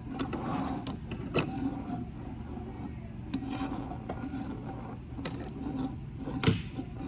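Scattered metallic clicks, knocks and rubbing from hands working stainless lifeline hardware on a boat's stanchions, with one sharper snap about six and a half seconds in, over a steady low hum.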